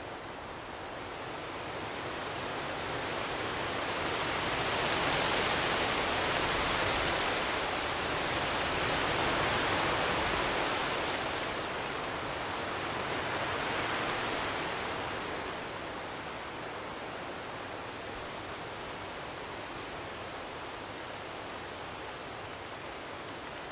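Wind blowing with a rushing hiss that swells in three gusts over the first part, then eases to a steadier, quieter blow.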